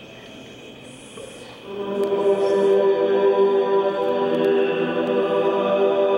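Ambient choral drone music. Faint high steady tones at first, then about a second and a half in a swell of layered, sustained choir-like voices comes in and holds a chord.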